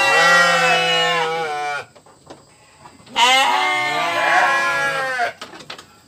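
Sheep bleating: a long, quavering bleat that trails off about two seconds in, then after a short pause a second long, quavering bleat.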